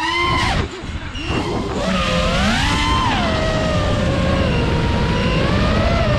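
FPV quadcopter's brushless motors and propellers whining, the pitch swooping up and down with the throttle. About half a second in, the whine drops and quietens briefly, then climbs again and slowly falls.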